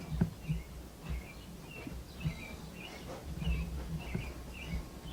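Footsteps and low handling thumps while walking through a house, with faint short high chirps recurring every half second or so.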